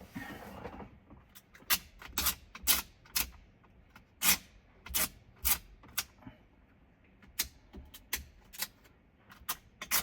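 Plastic screen-protector film being handled: a brief scratchy rustle, then a string of sharp, irregular clicks and crackles.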